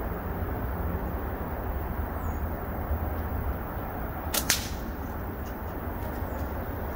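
A single slingshot shot about four and a half seconds in: the Snipersling .5 flat bands of a Prime Fork PFX-c slingshot are released with one sharp snap.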